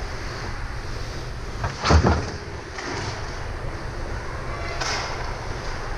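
Steady low rumble of ice arena background noise, with one heavy thud about two seconds in and a lighter knock near the end.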